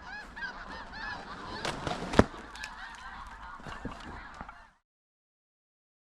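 A large flock of snow geese calling, many high honking calls overlapping. There is a sharp knock about two seconds in. The sound cuts off abruptly about three quarters of the way through.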